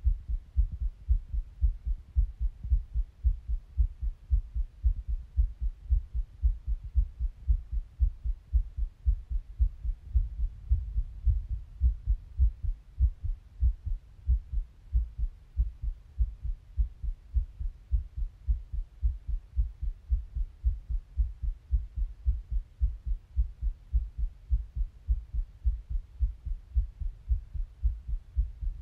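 A person's heartbeat, close up: low, muffled thumps in a steady, quick rhythm, with no breathing heard while the breath is held.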